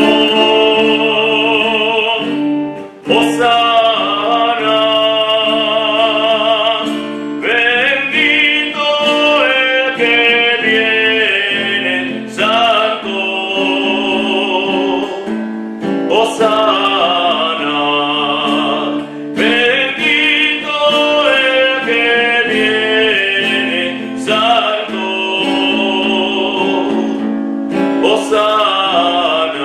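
An offertory hymn sung with guitar accompaniment: a solo voice holds long notes with vibrato over sustained chords, in phrases of a few seconds each.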